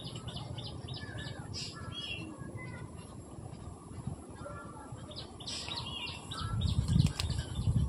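Small birds chirping, many short chirps one after another. About six and a half seconds in, a low rumbling noise comes up and grows loud, drowning the birdsong toward the end.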